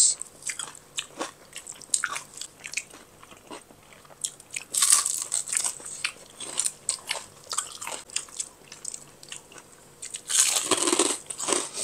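Eating sounds: crunchy bites into fried food and chewing. Small scattered crunches run throughout, with two louder bouts about five seconds in and near the end.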